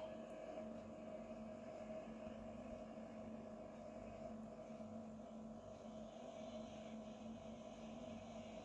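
A faint, steady hum with two held tones, one low and one higher, unchanging throughout.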